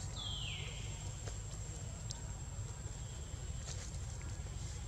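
Outdoor ambience with a steady low rumble, typical of wind on the microphone. Near the start a brief high call slides downward, and a few faint clicks follow.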